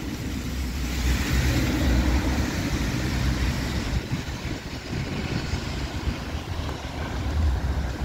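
Wind buffeting the microphone in an uneven low rumble, over the hiss of traffic on wet streets.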